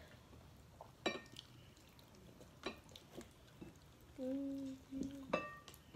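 Eating at the table: a few scattered clicks and taps, a couple with a short ringing like a dish being knocked, and a short hummed "mm" about four seconds in.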